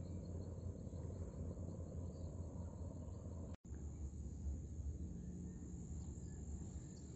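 Outdoor ambience: a ragged low wind rumble on the microphone with a faint, steady high insect buzz. The sound cuts out completely for a split second about halfway through.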